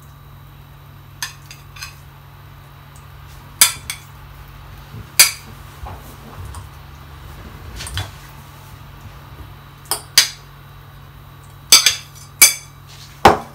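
A spoon clinking and knocking against a glass bowl in about a dozen sharp, irregular taps as food is scooped out of it; the loudest taps come near the end.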